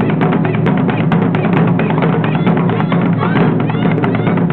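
Japanese taiko drumming: drums struck hard with wooden sticks in a fast, unbroken rhythm, with many sharp wooden clicks among the drum strokes.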